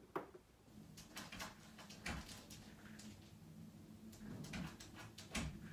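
Faint scratching and tapping from an English Cocker Spaniel puppy, a string of small clicks and scrapes.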